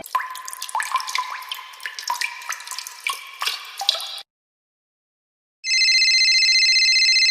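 Water-drop sound effect: a quick run of plinking drips, each rising in pitch, that cuts off about four seconds in. After a short silence, an electronic phone ringtone starts: a steady, warbling ring.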